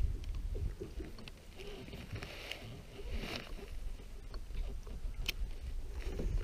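Boat outdoors on open water: wind rumbling on the microphone and water lapping against the hull, with scattered light ticks and one sharp click about five seconds in.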